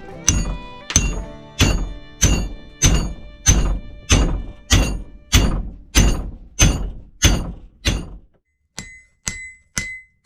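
Forging-hammer blows on hot axe steel on an anvil, each strike ringing out, at a steady pace of about three every two seconds as the axe body is drawn out. Near the end come a few lighter, quicker taps that ring.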